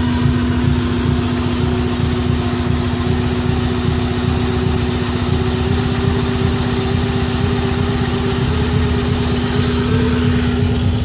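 1994 Subaru Impreza's flat-four engine idling with a misfire, which the owner suspects comes from a coil pack or the MAF sensor. A strong steady whine runs alongside the engine and cuts off near the end.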